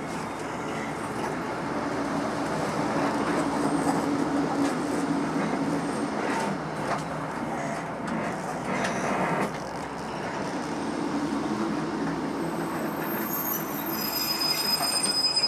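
Passenger train heard from on board, rolling along the track with a steady rumble and a few knocks of the wheels over rail joints. Near the end, high steady squeals set in as the train slows on its approach into the platform.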